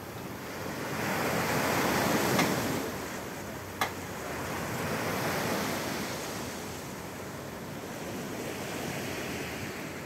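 Small waves breaking and washing up a pebble beach in slow swelling surges, with a sharp click a little under four seconds in.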